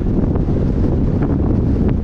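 Wind rumbling steadily on the microphone of a camera riding on a moving car.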